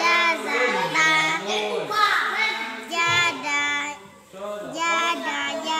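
A young boy's voice chanting Arabic in a melodic, sing-song recitation, holding and sliding between notes, with a short pause about two-thirds through.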